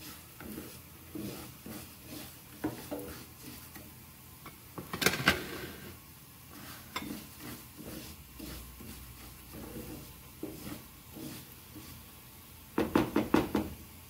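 A plastic slotted spoon scraping and stirring dry rice as it toasts in oil in a nonstick frying pan, a run of small scrapes and clicks. Louder clusters of quick knocks against the pan come about five seconds in and again near the end.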